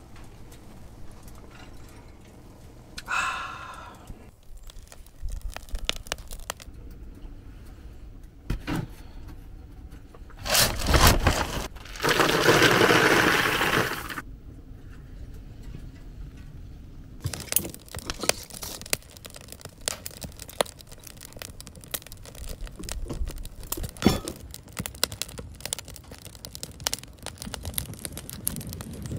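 Small pieces of wood poured into a cardboard box for about four seconds, starting about ten seconds in. After that, a wood fire crackling in a stainless steel fire pit, with scattered sharp pops.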